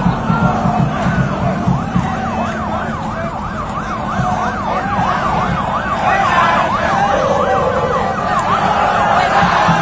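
A siren yelping in rapid up-and-down sweeps, about four a second, starting about a second in, over the noise of a crowd of motorcycle-riding supporters.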